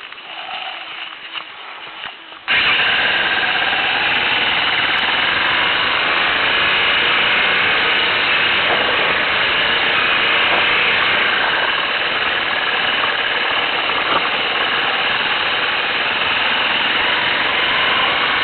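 Motorcycle engine running as the bike rides a rough dirt lane, a loud steady drone that sets in suddenly about two and a half seconds in, after a quieter stretch with light clicking.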